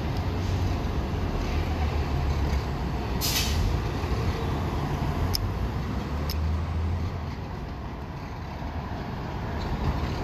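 City street traffic: a steady low rumble of engines and passing cars. About three seconds in comes a short hiss, and later two faint clicks.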